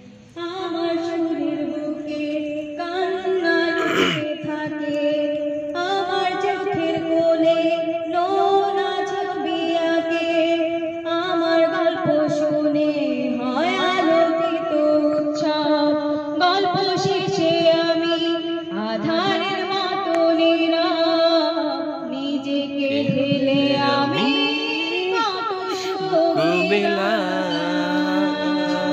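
A woman singing solo into a handheld microphone, a slow melody with long held notes that bend and waver, starting about half a second in.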